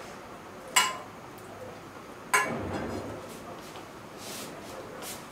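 Kitchen dishes or utensils clinking twice, about a second and a half apart; the second knock rings on briefly.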